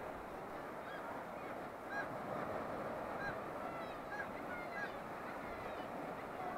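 Seabirds calling from the cliffs, short honking calls about once a second, over the steady wash of surf.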